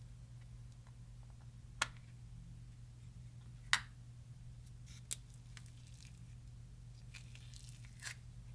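Hands working slime and makeup: a few separate sharp clicks and small sticky crackles over a steady low hum, the loudest about halfway through.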